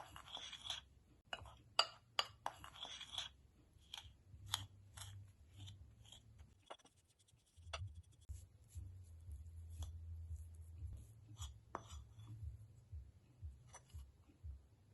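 Kitchen utensil tapping, clinking and scraping in a bowl while cookie dough is prepared: scattered light taps, with two short scraping rubs in the first few seconds.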